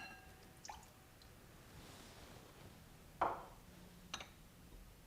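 Mostly quiet, with a light click at the start, a short soft drip-like splash about three seconds in and a faint tick a second later, as soy sauce is poured into the marinade bowl.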